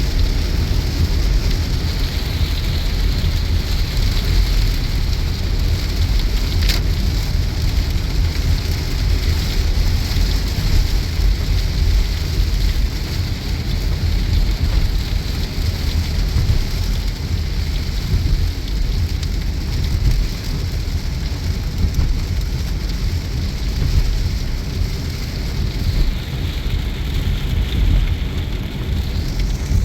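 Heavy rain pelting a car driving on the motorway, over the steady low rumble of the car and its tyres on the wet road. One sharp click about seven seconds in.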